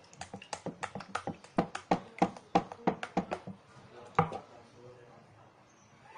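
Hands working slime: a quick run of sticky clicks and pops, about five a second, for the first three and a half seconds, then one more a little after four seconds.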